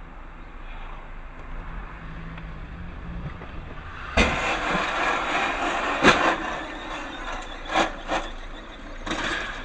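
Dashcam recording inside a moving car: a low steady engine and road hum, then about four seconds in a sudden, louder rushing noise with several sharp knocks, the strongest about six seconds in.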